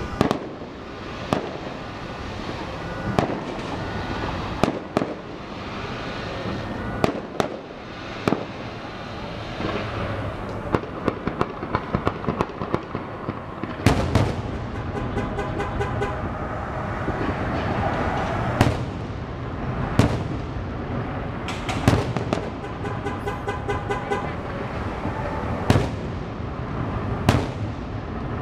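Fireworks show: aerial shells bursting with sharp booms every second or two, some coming in quick runs, over a steady background of car alarms set off by the loud blasts.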